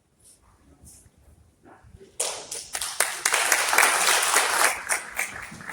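Audience applauding in a hall: the clapping starts suddenly about two seconds in, holds loud and dense, then thins out and fades near the end.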